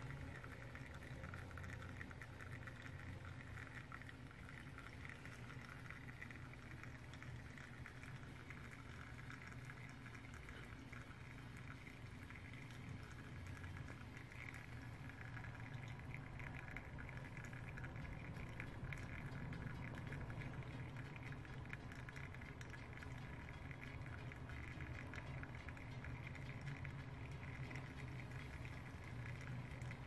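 Technivorm Moccamaster drip coffee brewer brewing: water heating and percolating through the machine with a steady, fine bubbling patter.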